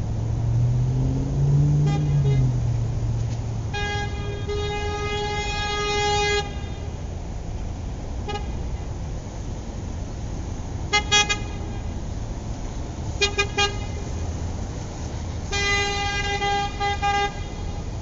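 Car horn honking on one steady tone: a short toot, a long blast of about two and a half seconds, another short toot, a quick double toot, a quick triple toot, then a final long blast near the end. Beneath it runs a steady low rumble that swells and fades in the first few seconds.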